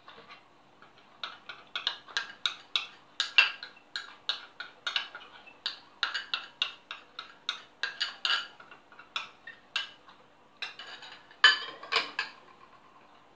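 Metal spoon clinking and scraping against a small glass cup while scooping cocoa powder out into a glass bowl: quick irregular clicks, a few a second, with a denser scraping stretch near the end.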